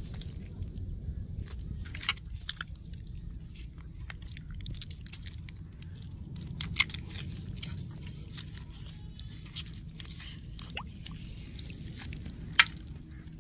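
Wet squelching and irregular sharp clicks as hands peel the skin off a raw squid over a bowl of water, with a steady low rumble underneath.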